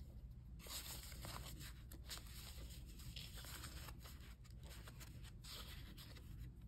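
Faint rustling and light scraping of thick cardstock pieces being shuffled and sorted in the hands.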